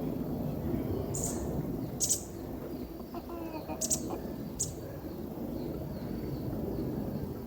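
Birds calling: a few short, high chirps about a second apart and a brief pitched call in the middle, over a steady low rumble.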